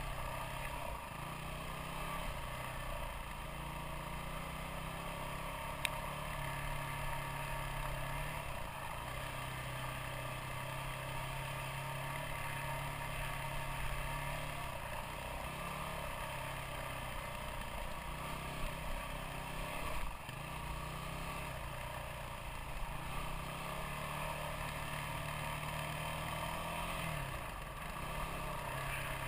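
Motorcycle engine running while riding, its pitch wavering a little with the throttle, over steady wind and road noise.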